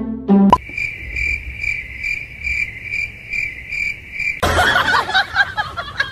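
Cricket-like chirping: a steady run of short, high chirps, about two to three a second. Near the end the chirping stops and a louder, noisier mix of sound takes over.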